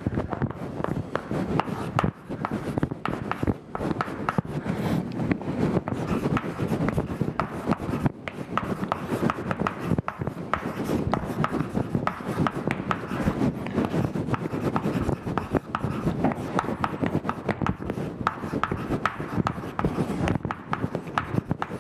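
Chalk writing on a blackboard: a continuous run of quick scratching and tapping strokes, with a few short pauses.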